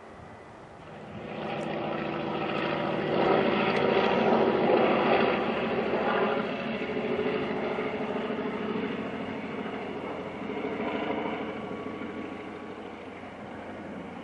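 Propeller aircraft passing by. Its engine drone swells from about a second in, is loudest around four to six seconds, and then slowly fades away.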